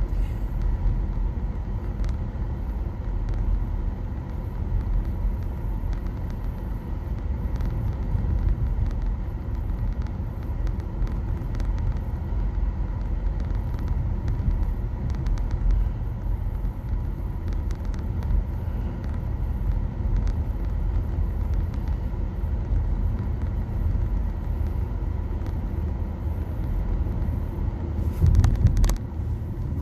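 Steady road and tyre rumble inside the cabin of a moving Nissan Leaf, an electric car with no engine note, windows shut. It swells louder briefly near the end.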